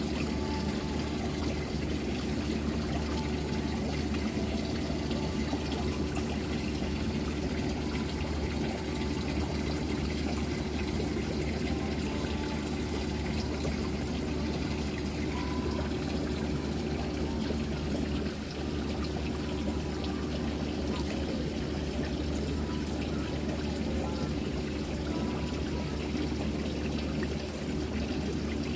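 Water pouring and trickling steadily into a pond, over a low steady hum.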